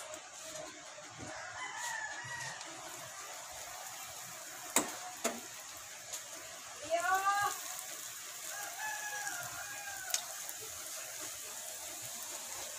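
A rooster crowing a few times, loudest near the middle, over the steady sizzle of breaded sweet potato donuts frying in a wok of oil. A couple of sharp clinks from the metal spoon stand out.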